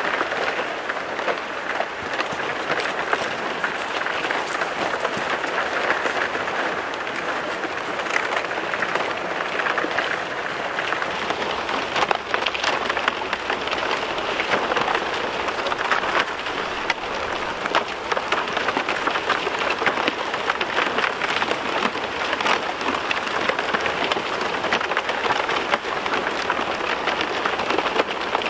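Thin new lake ice plates breaking and sliding over one another as a floe driven by a light breeze and small waves piles up on the shore: a loud, steady, dense crackling and tinkling of countless small cracks, with a few sharper cracks about twelve seconds in.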